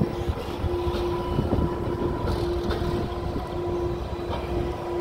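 Restored PCC streetcar rolling away along the tracks: a low rumble with a few faint clicks, over a steady hum.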